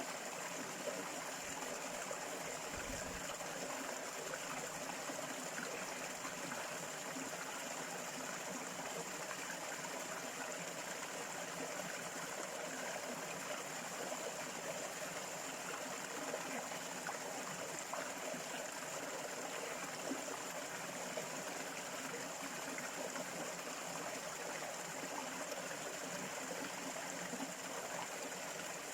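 A stream of running water, a steady even rush with a faint steady high tone above it.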